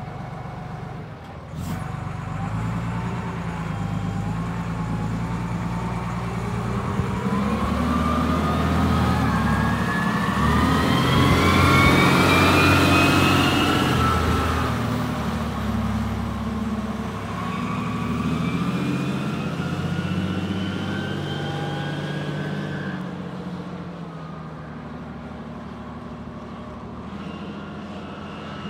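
Diesel engine of a 1990 Kalmar LMV DC 10-600 ten-tonne forklift running as the forklift drives. Its pitch rises twice as it gathers speed; it is loudest about halfway through and grows quieter near the end.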